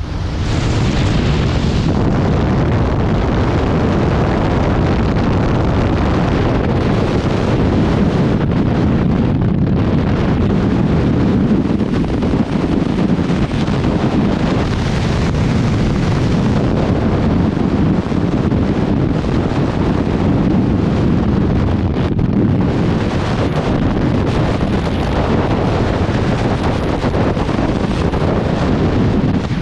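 Strong wind buffeting the microphone, a loud, steady rumble with no let-up.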